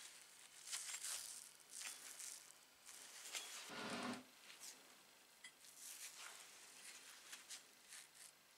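Faint scratching and rustling of gloved hands handling the rusty metal gear housing and cover of an old hand drill, with a louder rubbing sound lasting about half a second around four seconds in.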